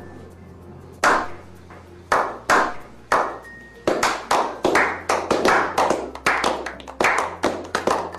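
Background music: sharp clap-like percussion hits over a low bass line. The hits come about once a second at first and quicken into a busy pattern from about four seconds in.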